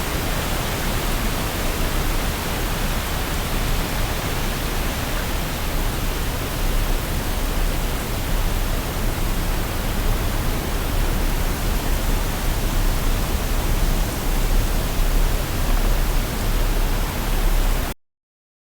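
Waterfall: a steady rush of falling water, dense and even with a deep low rumble, cutting off abruptly near the end.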